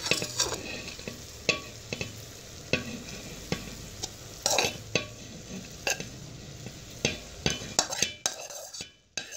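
Spoon scraping and knocking against a plate as boiled rice is dropped into a pot of hot oil, with a steady frying sizzle underneath. The sizzle and scraping die away near the end.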